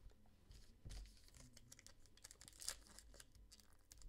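Faint crinkling and tearing of a foil trading-card pack wrapper being handled and pulled open by hand, with small scattered clicks.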